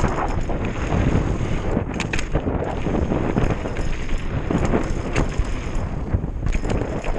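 Hardtail mountain bike descending a dirt trail at speed: wind buffeting the microphone over tyre noise on the dirt, with frequent short rattles and knocks as the bike goes over bumps.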